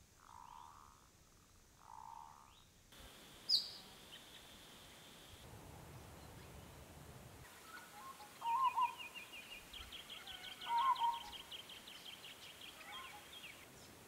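Birdsong: two soft coos near the start, a single sharp high chirp, then a peaceful dove's short call given twice, with a rapid run of high twittering from small birds behind it.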